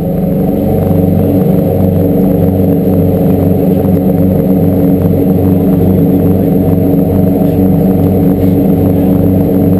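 Fishing boat's engine running steadily under way, a loud low drone with a regular throb.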